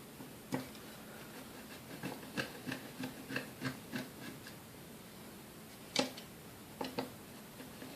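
Light clicks of a screwdriver working screws out of the bottom of a KitchenAid A9 coffee grinder's base. A quick run of small ticks comes a couple of seconds in, and two sharper clicks follow later.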